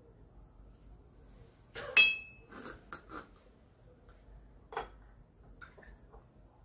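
Drinking glasses and tableware: a sharp glass clink with a brief high ring about two seconds in, followed by several lighter clicks and knocks as glasses and bottles are handled.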